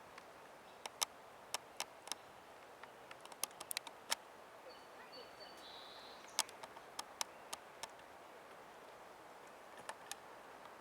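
Faint steady rush with sharp, irregular clicks and ticks scattered throughout, some in quick pairs, and a brief high chirp about five seconds in.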